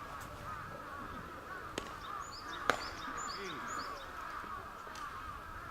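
Outdoor birdsong: a steady chatter of bird calls, with a quick run of about five short, high, falling chirps in the middle. A single sharp crack cuts through about two and a half seconds in.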